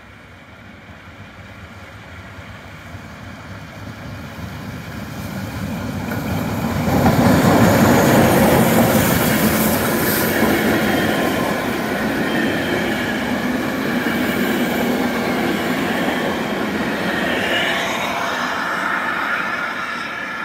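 Class 52 2-10-0 steam locomotive hauling a passenger train through a station: it approaches, growing steadily louder, and is loudest as it passes about seven seconds in. The coaches then roll by with steady wheel and rail noise.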